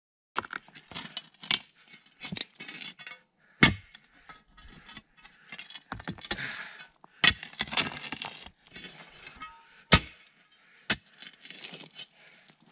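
A metal digging tool striking and scraping rocky ground: irregular sharp clinks and knocks with gravel scraping and crunching between them, the two hardest strikes about three and a half and ten seconds in.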